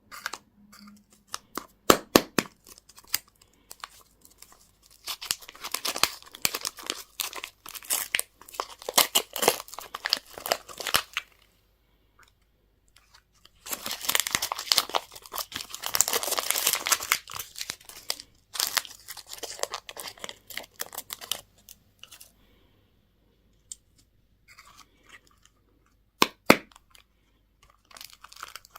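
Candy and toy packaging being torn open and crinkled by hand, in irregular bursts of crackling with sharp clicks and a few short pauses.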